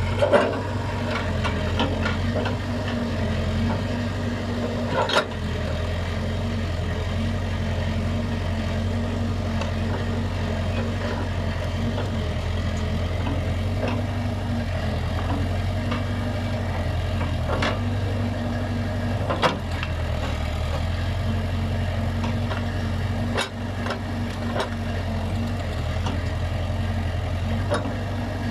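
Case backhoe's diesel engine running steadily, with a few sharp knocks from the machine at work, the loudest right at the start.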